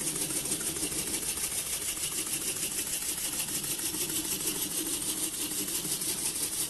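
Wobbler (oscillating-cylinder) model steam engine running at a steady speed on compressed air, its exhaust giving a rapid, even chuffing.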